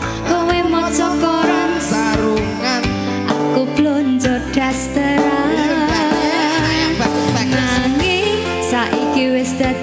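Javanese gamelan playing with singers over a sound system: held metallic notes, drum strokes, and voices singing a wavering, gliding melody.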